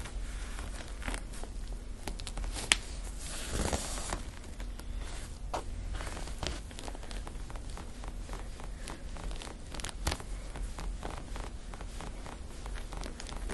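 Hands massaging the back of a person's neck, fingers rubbing and scraping against hair, skin and the table's headrest in many short, irregular rustling strokes, with a single sharp click about three seconds in. A steady low hum runs underneath.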